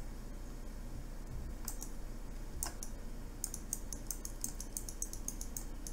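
Computer mouse clicking: a few separate clicks, then a quick run of small ticks lasting about two seconds, over a faint mains hum.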